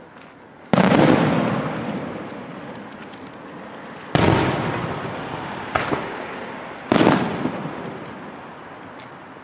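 Aerial firework shells bursting: three loud booms about three seconds apart, each fading away over a couple of seconds, with a smaller sharp crack between the second and third.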